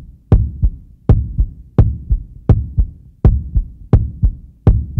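Heartbeat sound effect: a steady lub-dub, each beat a pair of deep thumps, at about 80 beats a minute.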